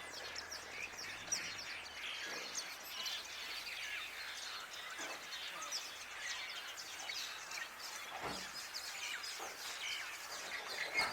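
Many small birds chirping and calling over one another in a busy, continuous chorus, with a steady hiss of outdoor background noise and a few faint dull knocks.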